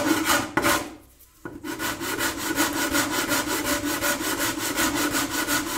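Sandpaper on a hand sanding block rubbed back and forth over the rim of a bağlama's staved wooden bowl, in quick even strokes about six a second, with a short break about a second in. The bowl's mouth is being sanded flat so the soundboard can seat on it.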